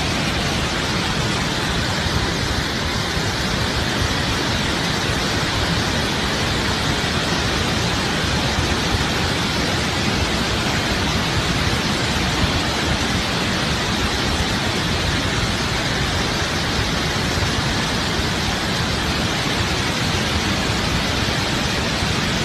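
A torrent of muddy floodwater rushing past close by: a steady, loud, even rush with no breaks.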